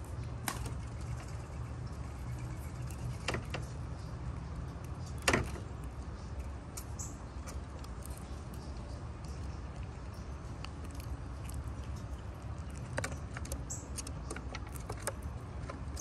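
Eastern gray squirrel crunching seeds and nuts: scattered sharp clicks as it chews, one louder crack about five seconds in and a quick run of clicks near the end, over a low steady rumble.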